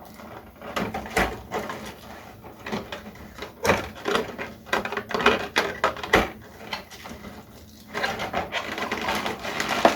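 Plastic packaging rustling and small plastic figure parts clicking as they are handled. The sound comes in bursts, busiest in the middle and again near the end.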